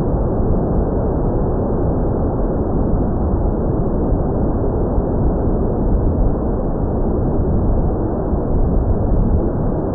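Wind rushing over the microphone: a steady, loud, low rumbling noise with no clear motor tone in it.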